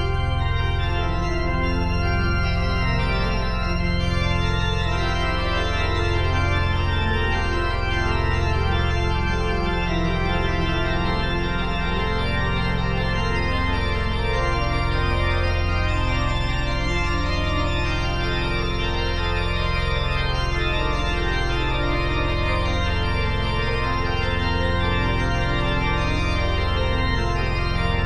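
Background music of sustained, organ-like chords over a low bass line.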